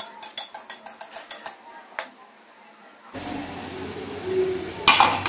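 Metal slotted spatula clicking and scraping against an aluminium karahi as a ring samosa is turned in hot oil, a quick run of light clicks over the first two seconds. The oil's frying sizzle comes up about three seconds in.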